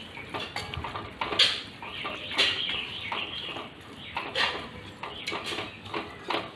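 Wooden spatula stirring and scraping marinated chicken and onion masala around a cooking pot, in uneven scraping strokes.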